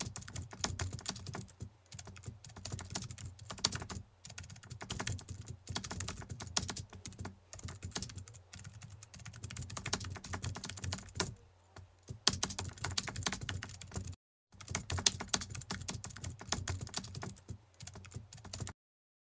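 Computer keyboard typing, fast runs of key clicks broken by a few short pauses, stopping just before the end; a typing sound effect laid over text.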